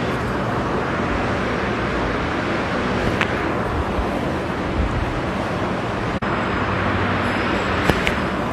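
Steady background traffic noise, with a few brief sharp clicks, one about three seconds in and one near the end.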